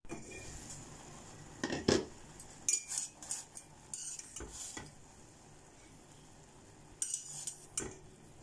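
Metal utensil clinking and scraping against a stainless steel pot while stirring and lifting boiling instant noodles, after the pot's glass lid is taken off. Sharp clatters come in clusters, loudest about two seconds in, with more near the end.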